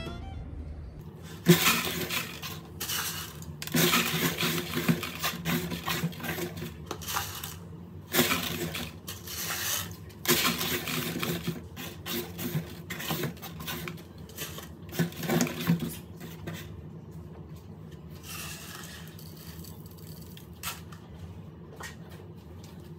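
Rice grains being scattered and swept by hand across a cardboard platform: a run of light clicks, rattles and scrapes, with some knocks from the cardboard being handled. It dies down to a few faint clicks for the last several seconds.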